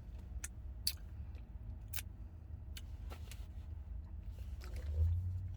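Low steady rumble inside a parked car, with a few faint sharp clicks scattered through it. The rumble swells briefly about five seconds in.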